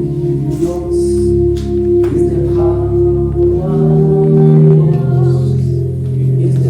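Church worship music: a keyboard holding long sustained chords, with voices singing over it from about two seconds in.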